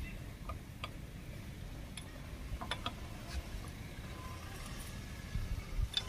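A wheel spanner working a car's lug nuts: a few scattered, sharp metallic clicks over a low rumble.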